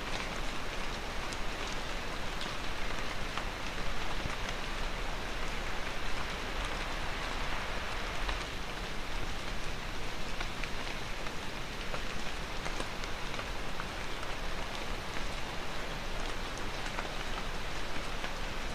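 Steady rain falling, a dense even patter with many small individual drop ticks.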